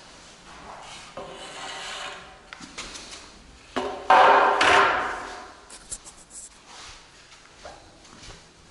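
Scraping and rubbing, twice: a rough scrape with a faint squeal in it, then a louder, longer one about four seconds in, followed by a few light clicks.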